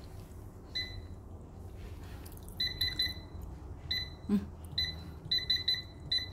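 Ariete air fryer's touch control panel beeping at each button press as the time and temperature are set: a dozen or so short high beeps, some single and some in quick runs of three or four.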